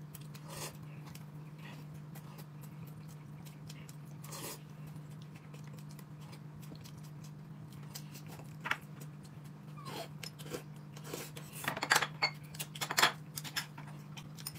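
A person eating, with scattered light clicks and short sharp sounds from dishes and utensils that grow louder and more frequent in the last few seconds, over a steady low hum.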